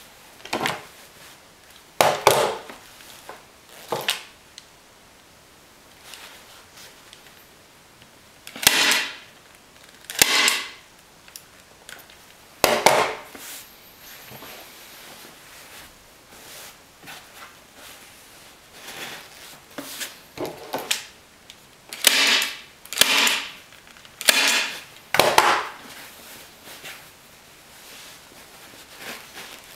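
Staple gun driving staples through upholstery fabric into a plywood seat base, firing about a dozen sharp shots at irregular intervals, some in quick pairs, with a lull in the middle. Fainter rustle of fabric being pulled taut between shots.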